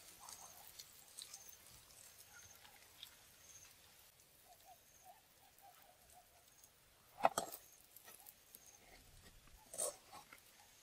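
Metal ladle scraping and knocking against a metal wok while fried grubs are scooped out, with two sharp knocks in the second half, the first the loudest.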